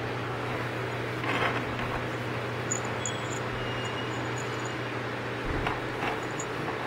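Steady low hum and hiss of room background noise, with a few brief soft rustles about a second and a half in and again near the end.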